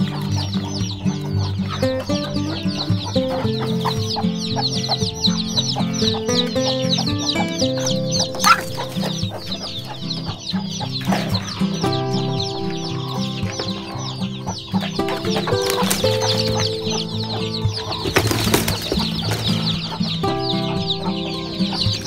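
A brood of chicks peeping continuously, many short falling peeps overlapping, over background music.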